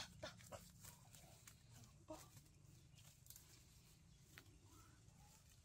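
Faint clucks from a captured chicken being handled, a few short calls near the start and middle, over scattered footsteps and rustling in dry leaf litter.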